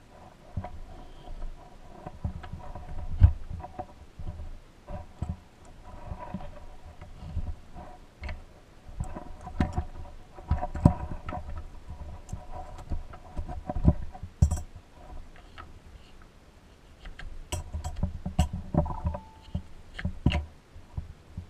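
Hands working old rubber toy wheels and thin metal axle rods off a vintage Tonka cement mixer on a carpeted bench: irregular soft knocks and thumps, with a few sharp small metal clicks.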